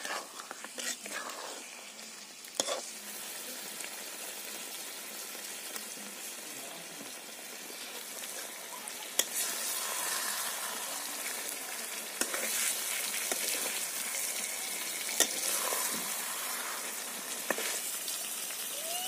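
Chicken pieces in thick masala sizzling in a black kadai while a flat metal spatula stirs them, with sharp clicks of the spatula against the pan now and then. The sizzle gets louder about halfway through.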